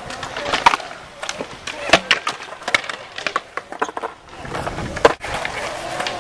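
Skateboards on concrete: wheels rolling with sharp clacks of boards striking the ground and ledges, the loudest snaps about two seconds in and about five seconds in.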